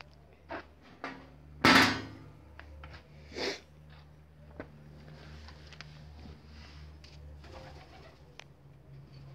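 Handling knocks and rustles: a few sharp knocks and a loud rustling thump just under two seconds in, over a low hum that breaks off and resumes.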